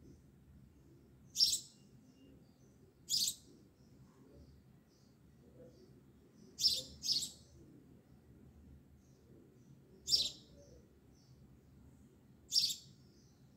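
A bird chirping: six short, high single chirps a few seconds apart, two of them in quick succession about seven seconds in.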